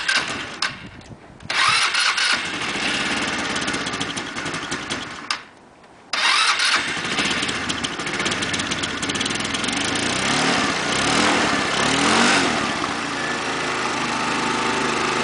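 Small scooter engine being cranked on its electric starter in bursts, with two brief pauses, until it catches and runs. The revs rise and fall a couple of times, then it settles to a steady idle.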